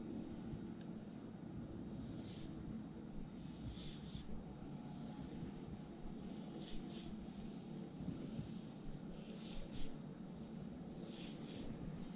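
Steady high-pitched insect chorus, like crickets, with short paired chirps recurring every couple of seconds, over a low steady rumble.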